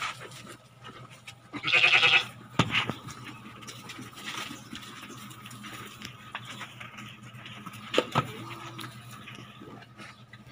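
A Harri sheep bleats once, loudly, about two seconds in, over a steady low hum. A couple of sharp knocks follow, one just after the bleat and one near the end.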